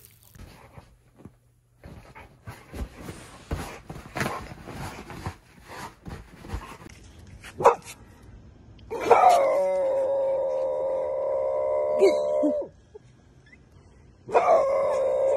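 A puppy digging in wood-chip mulch, heard as a run of light scratching and rustling. Then a boxer gives two long howls at a steady pitch, each about three and a half seconds long; the second starts near the end.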